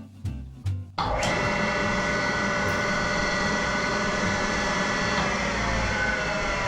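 Jointer motor and shop dust collector switched on together about a second in. The switched outlet fires the relay that starts the dust collector, so both start abruptly and run on at full speed as a steady rush of air with several steady high tones. Background music plays before they start.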